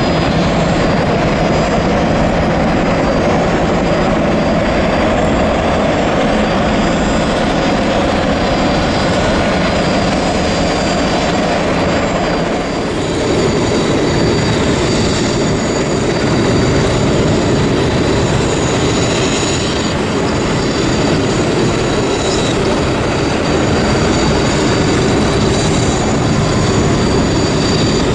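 Sikorsky Black Hawk twin-turboshaft helicopters: steady rotor and turbine noise of one in flight, then, after a change about 13 seconds in, several on the runway with a steady high turbine whine over the rotor noise.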